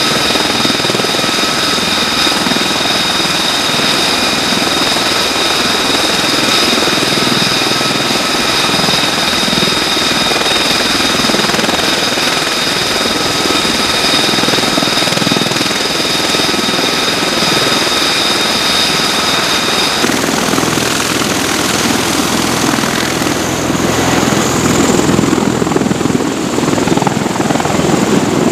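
V-22 Osprey tiltrotor running on deck with its proprotors turning: a steady heavy rotor noise topped by a high, even turbine whine. About twenty seconds in the whine drops away, and near the end the rotor noise grows louder as the aircraft lifts off into a low hover.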